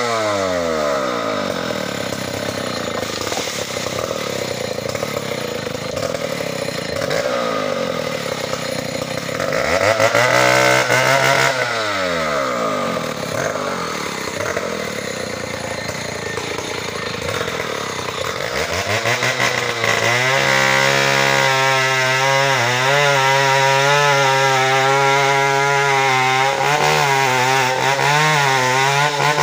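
Stihl 070 two-stroke chainsaw dropping back to idle, revved up and let down again about ten seconds in, then climbing to high revs from about twenty seconds in and held there, wavering under load as it cuts into the ulin trunk.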